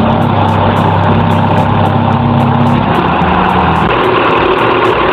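Heavy diesel engine of a mobile crane running steadily at work, its pitch shifting about three seconds in and again about a second later.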